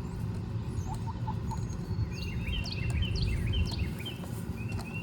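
Birds chirping in a quick run of short, high notes, mostly between about two and four seconds in, over a low, steady rumble.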